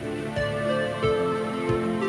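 Background music: slow, soft melodic instrumental with sustained notes over a steady beat.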